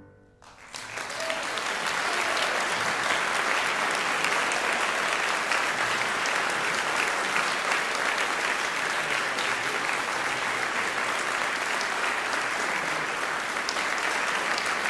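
Concert audience applauding, breaking out about half a second in and then continuing steadily.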